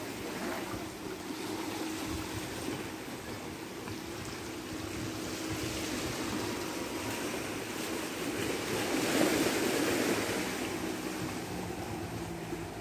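Small waves lapping and washing against a rocky shore, a steady rush of water that swells louder about nine seconds in.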